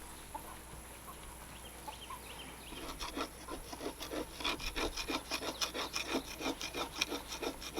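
Hand scraping strokes on the underside of a zero-turn mower deck, about four quick rubbing strokes a second, working loose grass caked and gummed onto it. The strokes start about three seconds in after a quieter stretch.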